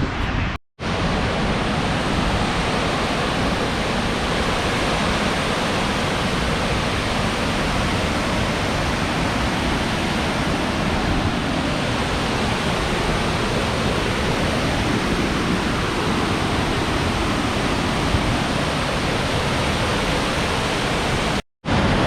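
Loud, steady rushing of a large waterfall at close range, a dense even roar of falling water. The sound cuts out completely for a moment about a second in and again near the end.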